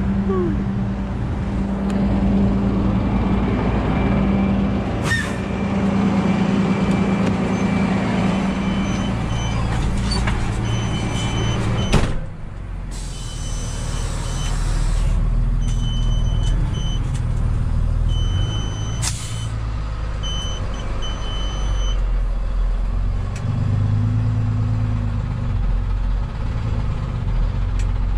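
Rollback tow truck's engine and road noise heard from inside the cab while driving, steady throughout. A sharp clunk comes about halfway through, and a short, high, on-and-off beeping sounds several times around the middle.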